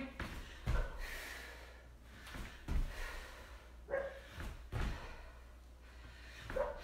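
Bare feet landing with a thud about every two seconds during jump squats with a half turn. Two short, sharp bark-like calls come in the second half.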